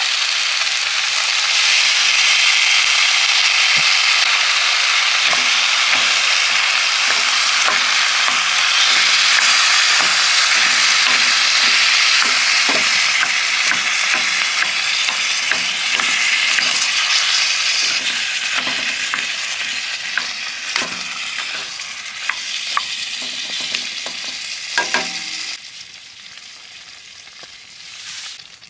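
Food sizzling loudly in a hot pan, with a utensil clicking against the pan as it is stirred. The sizzle drops away abruptly near the end, leaving a much quieter tail.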